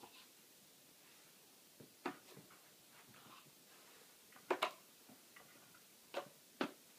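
A dog playing with a small toy owl ornament, pouncing on it and batting it about: a few short, sharp knocks, with two close together about halfway through and two more near the end.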